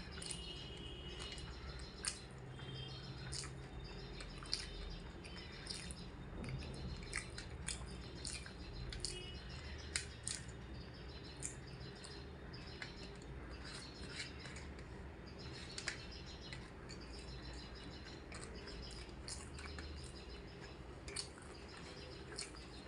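Close-miked eating sounds: scattered wet clicks and smacks of chewing and handling food, over a low steady hum, with a few faint high chirps.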